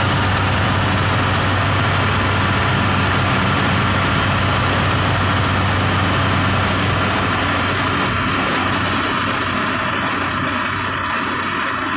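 Car driving at highway speed, heard from inside the cabin: a steady engine drone under road and wind noise, easing slightly over the last few seconds.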